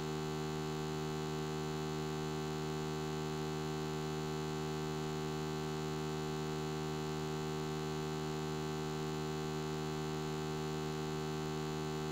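Steady electrical mains hum: an even, unchanging buzz with many overtones.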